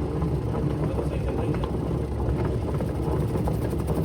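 Semi-automatic washing machine's wash motor and gearbox running steadily on a test run, with a continuous low hum and rattle. The gearbox is faulty and leaking, so the pulsator fails to turn in one direction and the machine makes an unusual noise.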